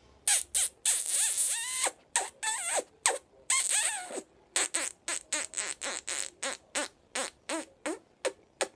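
Rapid wet kissing smacks between an African grey parrot's beak and a woman's lips, about three or four a second through the second half, with squeaky sliding chirps mixed in during the first half.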